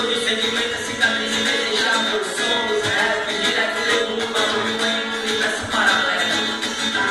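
Rap song played live, with a plucked-guitar backing, recorded through a phone's microphone so it sounds thin, with little bass.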